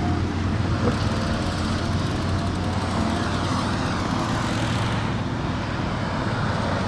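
Steady wind and road noise from riding a bicycle on wet streets in light rain, with a constant low hum.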